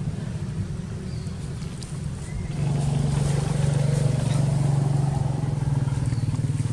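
An engine running, a steady low drone with a fast even pulse that grows louder about two and a half seconds in and holds, over a low wind rumble.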